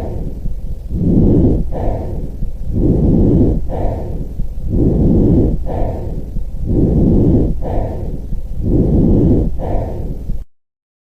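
Recorded breath sounds: steady cycles of breathing in and out, each breath phase about a second long, about five full breaths, cutting off abruptly shortly before the end.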